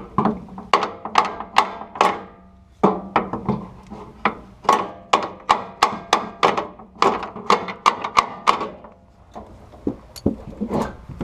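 Repeated sharp knocks, about two to three a second, as the gas tank under a Chevy K10 pickup is struck to knock it over into line with its mounting brackets. The knocks thin out near the end.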